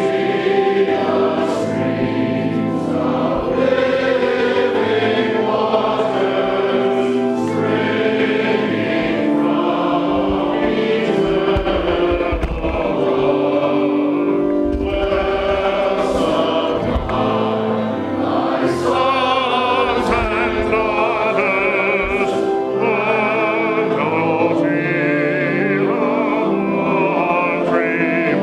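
Choir singing with organ accompaniment, with long held chords; the voices' vibrato grows more prominent in the second half.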